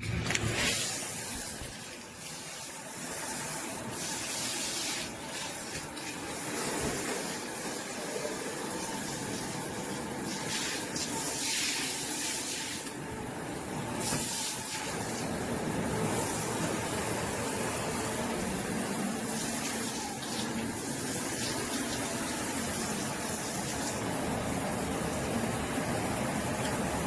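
Water spraying steadily from a handheld pet shower hose running off a tub spout diverter, a continuous hiss that starts abruptly at the beginning.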